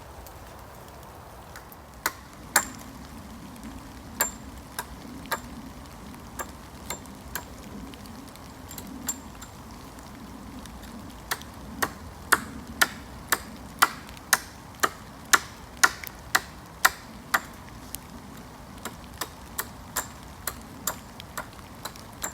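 Hammer driving nails into wooden roof-frame branches: sharp metallic strikes, a few scattered at first, then a steady run of about two blows a second in the middle, with more after a short pause near the end.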